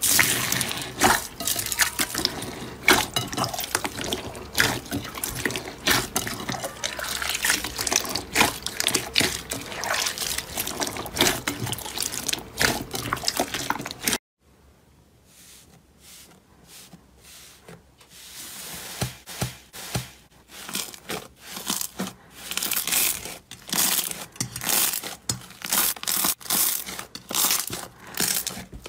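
Hands squeezing and kneading wet jelly slime packed with small beads in a glass bowl, giving dense wet squelches and sharp crackly pops. About halfway through, the sound drops away suddenly, then quieter squelches and pops build up again.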